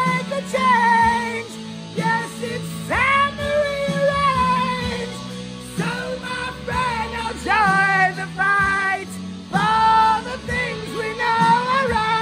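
A man belting a song in a high, strained voice over a backing track of sustained music, in phrases a second or two long with short breaks between them. By the singer's own account he is singing off key.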